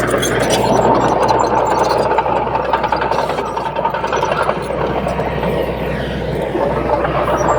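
Heavy diesel engine of earthmoving machinery running steadily, with a thin whine over the first half.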